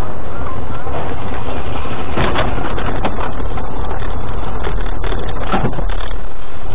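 Dashcam recording inside a car skidding off a snowy road and running onto rough ground: a loud, dense rumble, with a thump about two seconds in and another about five and a half seconds in.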